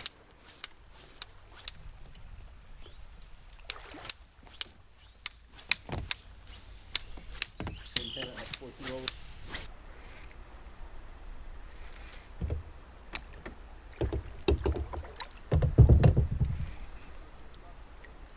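Kayak being paddled: a run of sharp knocks and clicks from the paddle and boat, one or two a second, through the first half. Near the end come louder low splashes and sloshing, the loudest of them about sixteen seconds in.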